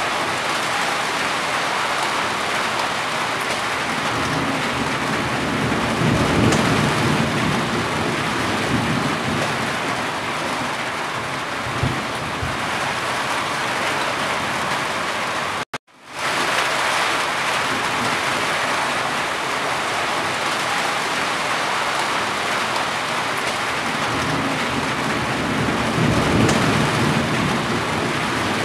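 Steady rain drumming on a corrugated roof and running off its eaves. A low rumble swells up twice, about a quarter of the way in and again near the end. The sound cuts out completely for about half a second around the middle.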